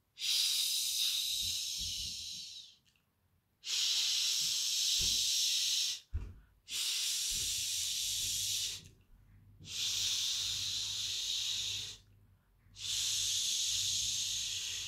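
A woman shushing with a finger to her lips: five long "shhh" hisses of about two seconds each, with short pauses between.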